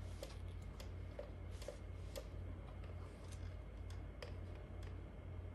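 Tack-welding a slit in a car's metal tail section: about ten short, sharp ticks at uneven intervals as each tack arc strikes, over a low steady hum.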